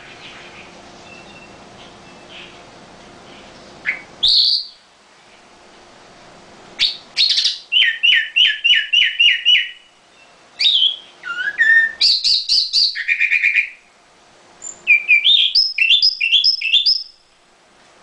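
Red-billed leiothrix (Chinese nightingale) singing. After a few quiet seconds come a short call and then several loud phrases of fast repeated notes, with short pauses between them.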